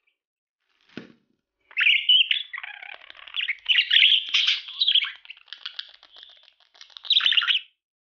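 Budgerigar warbling: a rapid chattering stream of high chirps, clicks and gliding whistles, starting about two seconds in. A soft thump about a second in.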